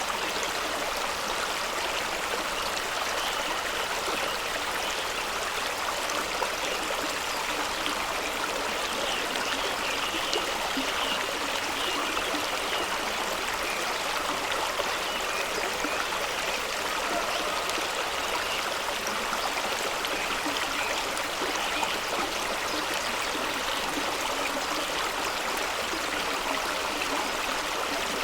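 Fast-running stream rushing and gurgling over rocks, steady throughout.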